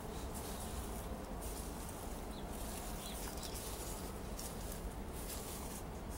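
Potting soil rustling and scraping as a gloved hand sweeps it across a plastic seed tray to cover the sown seeds, in uneven swishes over a steady low background rumble.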